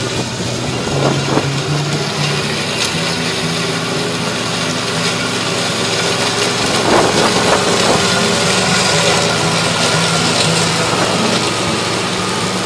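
Toro ZS4200T zero-turn riding mower running under load as its deck blades cut through tall, dense meadow grass, the engine note shifting slightly in pitch.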